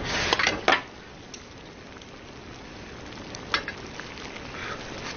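Ramen water boiling in a metal pot on a gas burner, a steady bubbling hiss. There are two sharp metal clinks from the pot lid about half a second in and another clink about three and a half seconds in.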